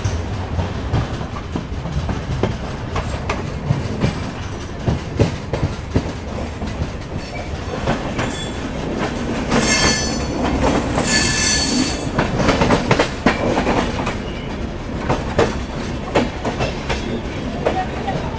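Indian Railways passenger coaches rolling out of a station, heard from an open coach door: a steady rumble with irregular clicks of steel wheels over rail joints and points. A high-pitched wheel squeal sets in about ten seconds in and fades after a couple of seconds.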